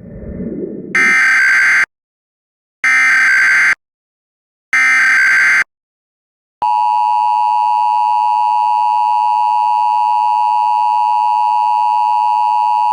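Emergency Alert System tones: three short bursts of the SAME digital header, a warbling data screech each about a second long with a second's gap, followed about six and a half seconds in by the steady two-tone EAS attention signal. A brief low rumbling noise comes just before the first burst.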